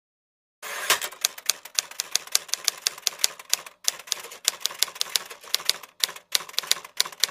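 Typewriter typing sound effect: a quick run of sharp key clacks, about five a second, with a couple of brief pauses, starting abruptly a little over half a second in.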